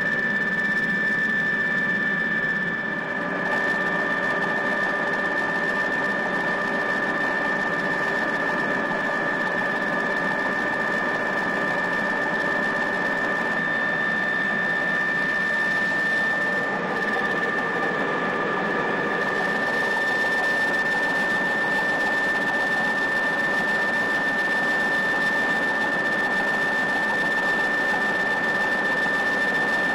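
Helicopter in flight heard from inside the cabin: a steady high-pitched whine over a constant rushing engine and rotor noise.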